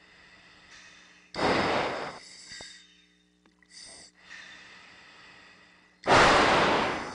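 A pilot breathing through an aviator's oxygen mask, picked up by the mask microphone: two loud, rushing breaths about a second each, roughly five seconds apart, with a fainter one between them, over a faint steady low hum.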